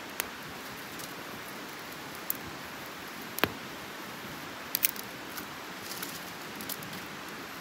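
Dry leaves rustling faintly with a few sharp clicks and ticks as hands pick litter out of the leaf litter, the sharpest click about halfway through, over a steady hiss.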